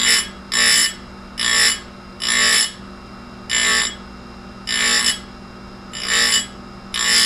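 Tecomec Jolly Evo chain grinder's wheel spinning with a steady motor hum, and a shrill grinding screech each time the wheel is brought onto a chainsaw cutter, about eight short touches in a row, touching up the tooth's point to a crisp edge.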